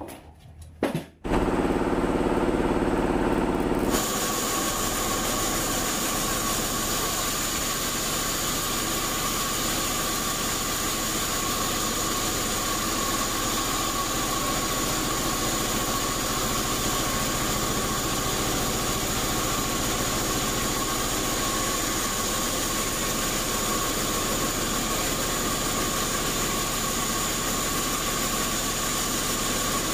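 Vertical band sawmill running and cutting lengthwise through an old acacia log: a steady mechanical drone with a steady high whine, coming in suddenly about a second in.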